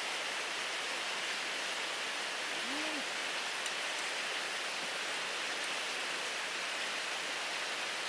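Steady rushing of a fast river running over rocky rapids.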